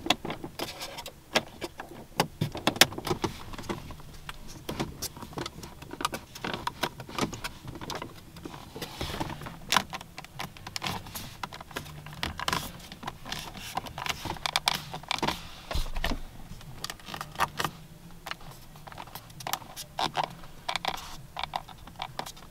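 Fingers poking, pressing and knocking on a 2004 Cadillac XLR's interior trim, giving many irregular clicks and taps of plastic and leather.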